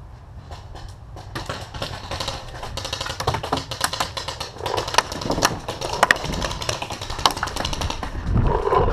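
Paintball markers firing in fast strings: a dense, irregular patter of sharp pops that starts about a second in and builds, with several louder single shots. A brief low rumble comes near the end.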